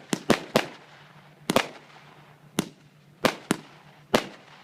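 Fireworks battery firing: a string of sharp bangs at irregular intervals, some in quick pairs, about two a second, each with a short echoing tail.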